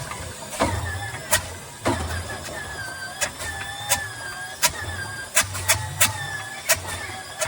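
Allison V-1710 V12 aero engine being started, firing raggedly with about a dozen sharp, irregular pops over a low, uneven throb rather than settling into a steady run.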